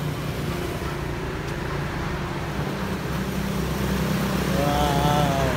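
Street traffic with car and motorcycle engines running; the low engine rumble grows louder about four seconds in as a vehicle passes close.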